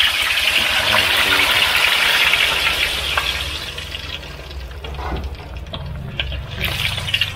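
Hard-boiled duck eggs deep-frying in hot oil in a wok, with a loud, dense sizzle that dies down about four seconds in to a lighter crackle. A low steady rumble runs underneath.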